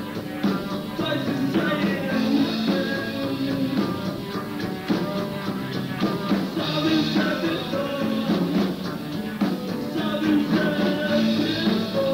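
Rock band playing live, electric guitar over a drum beat, with a melodic figure that repeats about every four seconds.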